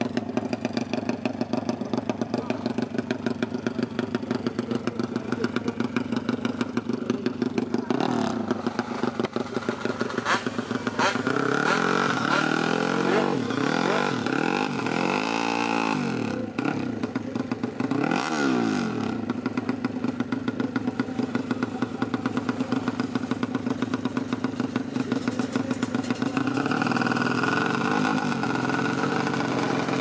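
Drag-race motorcycle engine with twin exhaust silencers idling with a steady, fast pulse, then revved in several quick rising-and-falling blips about halfway through. It settles back to idle, then holds a higher, steady note near the end.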